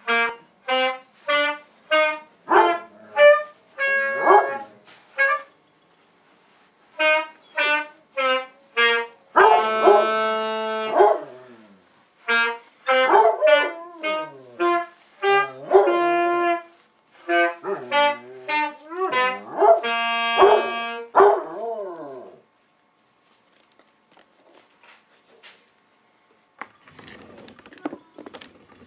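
A saxophone playing a run of short notes and some longer held ones while a basset hound joins in with its own voice, its notes sliding and bending in pitch. Both stop about two-thirds of the way through.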